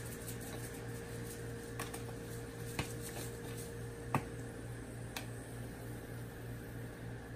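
Quiet kitchen with a steady low hum and four faint, short clicks and taps about a second apart, from a spice container being handled and set down.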